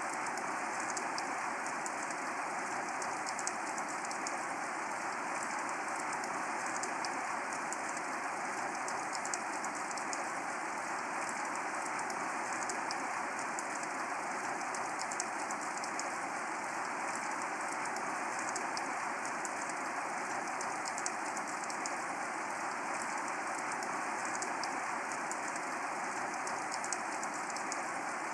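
Steady rain falling, with a constant hiss and many fine, scattered drop ticks.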